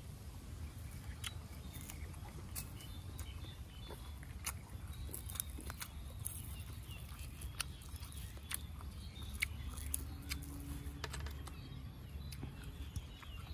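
Close-up chewing of crisp raw vegetables: irregular crunchy clicks from the mouth, over a low steady rumble.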